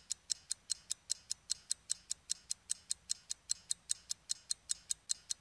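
Fast, even ticking sound effect for the channel's logo intro, about five sharp ticks a second.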